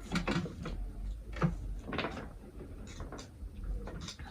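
Scattered short metal clicks and scrapes of a nut being tightened by hand on an industrial sewing machine's belt adjustment, a few louder knocks among them.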